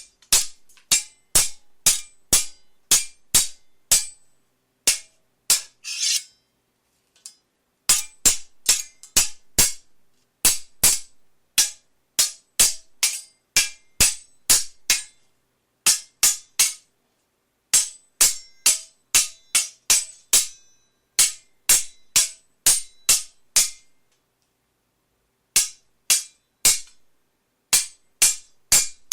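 Steel swords clashing in a duel: quick clangs with a bright ringing, two or three a second in flurries. There is a short blade-on-blade scrape about six seconds in and brief pauses near seven and twenty-four seconds.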